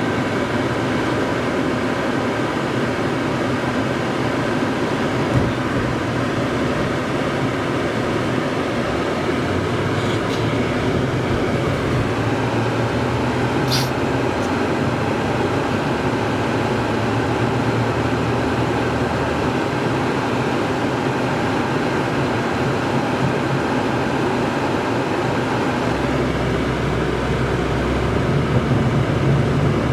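Steady road and engine noise of a car driving at highway speed, heard from inside the cabin. A brief high blip comes about halfway through, and a deeper low rumble sets in near the end.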